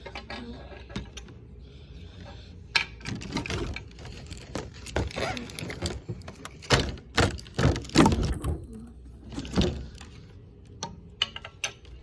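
Small plastic toy pieces and their packaging being handled: a run of clicks, taps and knocks with some rustling, busiest from about three to ten seconds in.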